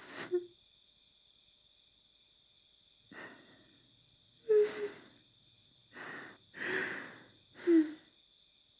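Crickets chirping steadily. Over them a person breathes out heavily six times, some breaths catching briefly in the voice; the loudest come about four and a half seconds in and near the end.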